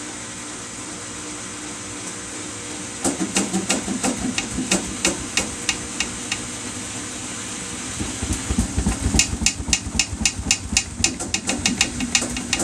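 Samsung washing machine on its spin cycle: a steady hum, then from about three seconds in repeated knocking at a few knocks a second, which pauses briefly and comes back faster over a growing low rumble near eight seconds in. The knocking is the sign of an off-balance load.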